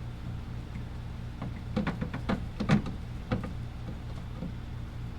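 A quick run of light clicks and knocks from handling and fitting a new tail light assembly onto the car's rear panel, loudest about two and a half seconds in, over a steady low hum.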